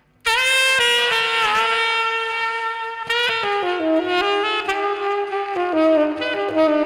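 Tenor saxophone playing a slow solo. It comes in sharply after a brief pause with a bending note, then starts a new phrase about three seconds in that steps down to held notes.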